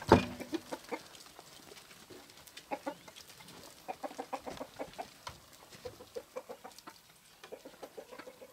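A wooden shed door knocks open, loudly, right at the start, then chickens cluck over and over in short repeated notes as they come out of the coop.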